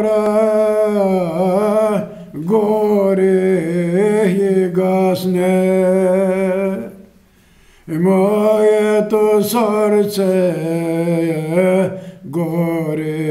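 A man's voice singing a sorrowful Pomak türkü unaccompanied, in long held notes with wavering ornaments. It breaks off for about a second near the middle, and briefly twice more.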